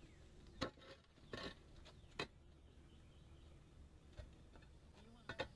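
A few sharp clacks and knocks of concrete roof tiles being handled and set in place, with a quick double knock near the end.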